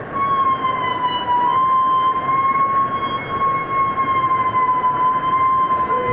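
Humpback whale feeding call: one long, steady tone with overtones, wavering slightly in pitch, over a steady hiss. Near the end a second, lower call begins and rises slightly.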